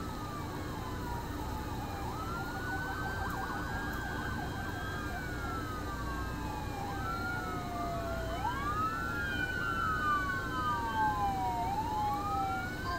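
Several police car sirens wailing at once, each sliding slowly up and down in pitch out of step with the others as a line of patrol cars passes, over a low rumble of traffic.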